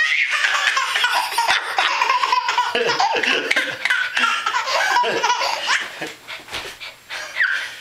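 A baby belly-laughing in long, repeated fits, with a short lull about six seconds in.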